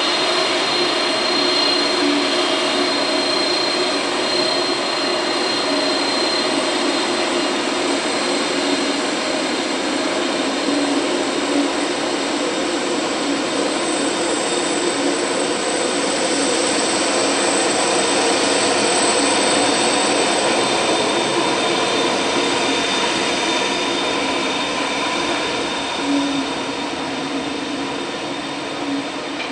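Airbus A300B4-605R twin jet engines running at taxi power: a steady rumble with high whining tones. It fades a little near the end as the airliner moves away.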